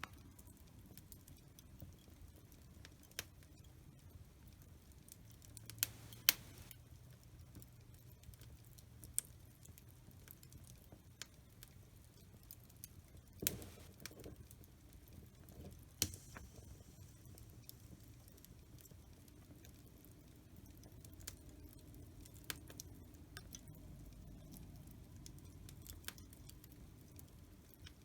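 Wood fire in a fireplace crackling, with a low bed of fire noise and scattered sharp pops and snaps, the loudest a few near six seconds in, halfway through and about sixteen seconds in.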